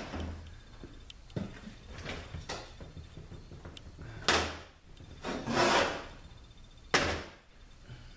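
Metal transmission pump parts handled on a workbench: a few light clicks, then a heavy knock about four seconds in, a longer scraping slide, and another sharp knock near the end.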